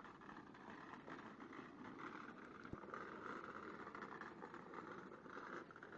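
Faint steady outdoor background noise, an even hum with a single small click about three seconds in.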